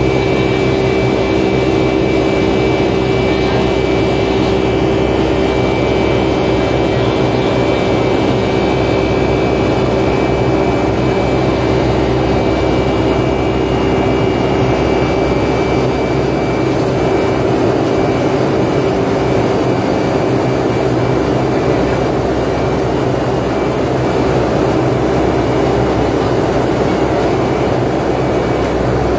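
Jet engine cabin noise of a Boeing 757-200 in flight, heard from inside the cabin at a window seat over the wing. It is a steady drone of engine and rushing air, with a constant hum of engine tones running under it.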